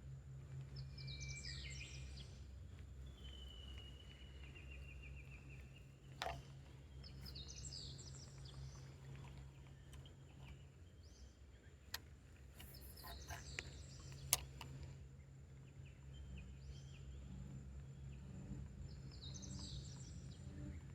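Outdoor ambience at the water's edge: a songbird repeats a short song phrase about every six seconds, once with a long whistled note, over a steady low rumble. A few sharp clicks come in the middle, the loudest near two-thirds of the way through.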